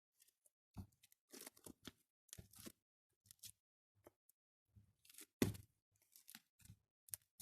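Slime being squished and worked in the hands: a quiet, irregular run of short pops, crackles and squelches, loudest a little past five seconds in.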